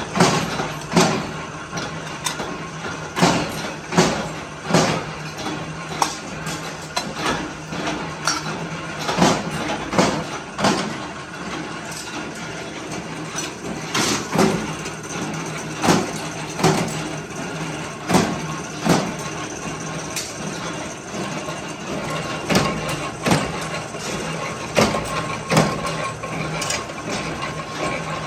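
Dish-shaped scrap steel pieces clanking against each other as they are stacked by hand and dropped into a bin, in sharp irregular knocks, over the steady hum of running workshop machinery.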